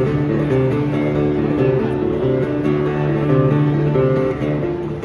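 A street busker's acoustic guitar, strummed chords changing every second or so.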